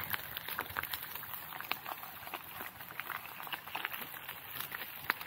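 Pepperoni slices sizzling in olive oil in a frying pan, with a steady hiss and many irregular small crackles and pops.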